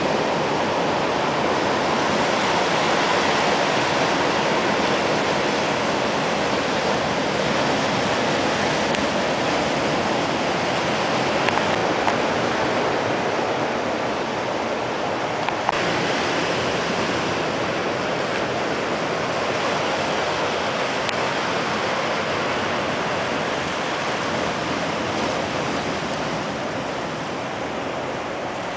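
Ocean surf washing onto a beach: a steady, unbroken rush of breaking waves.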